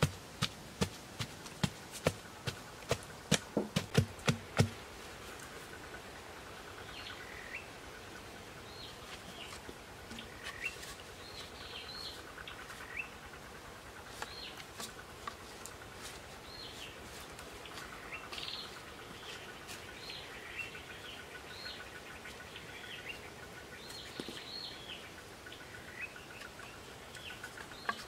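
A wooden stick pounding on a bamboo post set in the soil: a quick series of sharp knocks that comes faster, then stops about five seconds in. Birds then call over and over, with a faint trill coming and going underneath.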